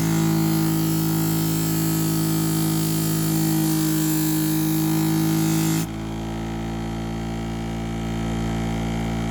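Electric knife-grinding machine's motor running with a steady hum while a sashimi knife is ground on its 400-grit abrasive, a dense grinding hiss. About six seconds in the grinding hiss stops abruptly and only the motor's hum carries on.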